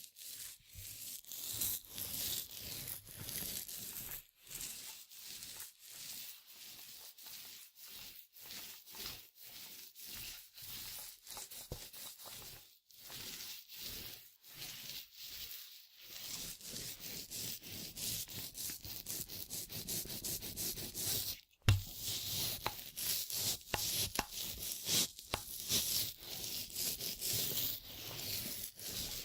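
Paint roller rolled back and forth over a surface in repeated strokes, a rough, hissing rub of the roller cover with short breaks between strokes. A single sharp knock comes about two-thirds of the way through.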